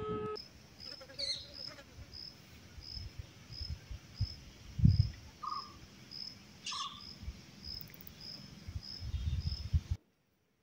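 Outdoor farm ambience: an insect chirping steadily, about three high chirps every two seconds, with two short bird calls, one about a second in and one near the seven-second mark. Low rumbles of wind or handling on the microphone come and go, the loudest a dull thump about five seconds in; the sound cuts off near the end.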